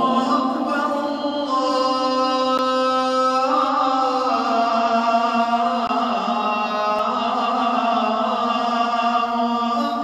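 A voice chanting in long, held notes that step from one pitch to the next every second or two.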